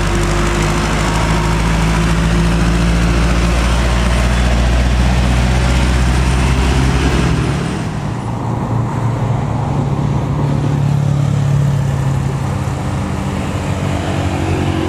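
Diesel engine of a heavily loaded Isuzu Elf light truck running steadily as it pulls up a hill. About seven seconds in the sound changes abruptly to a Mitsubishi Canter truck's diesel engine climbing, its pitch rising partway through, with other traffic.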